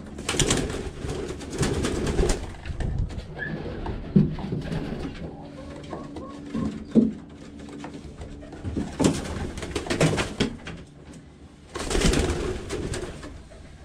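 Homing pigeons cooing in the loft, with three bursts of flapping wings as the birds are driven off their perches, near the start, about nine seconds in and again near the end, and a couple of sharp knocks between them.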